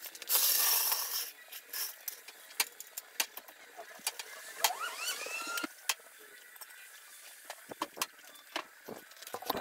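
Scattered metal clicks and knocks from jacking up the front of a pickup and setting it on jack stands, with a loud burst of noise about half a second in and a short rising squeak about five seconds in.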